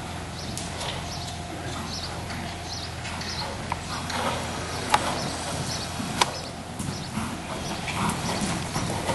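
Hoofbeats of a KWPN (Dutch Warmblood) gelding trotting on arena sand, a run of soft repeated strikes with two sharper clicks midway, getting louder as the horse comes near. A steady low hum runs underneath.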